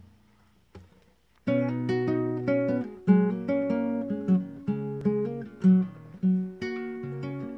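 Acoustic guitar played as a song's introduction, starting about a second and a half in after two faint taps: picked notes over a changing bass note.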